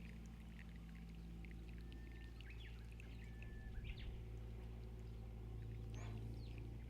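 Wild birds chirping and whistling in short calls, with a few held notes, over a steady low hum. A brief low thump comes about four seconds in.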